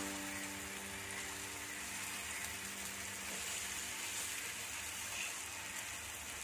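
Marinated chicken leg pieces and onion sizzling steadily as they fry in a pan.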